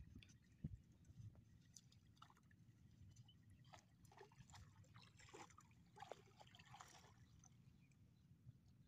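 Faint splashing and trickling of shallow river water as a fisherman wades in and works a bamboo push net, with a scatter of small splashes about four to seven seconds in.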